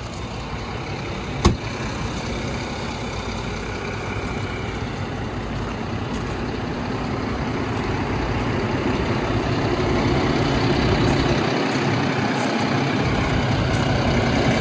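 Fendt 930 tractor's diesel engine idling steadily, getting louder as the microphone moves close along the tractor. A single sharp knock about a second and a half in.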